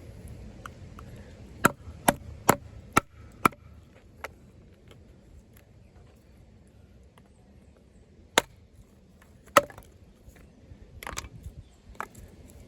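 Off-Grid Caiman XXL bowie knife chopping into wood with sharp, short strikes. A quick run of five strikes comes a couple of seconds in, then single strikes a second or more apart.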